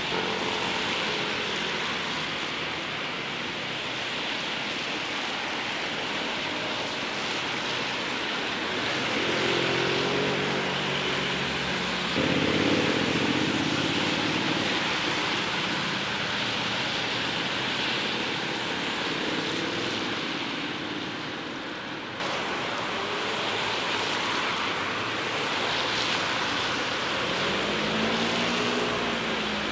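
Steady outdoor city noise of traffic and the swollen river, changing abruptly about twelve and twenty-two seconds in. Near the end a metro train crosses the elevated viaduct with a rising then falling whine.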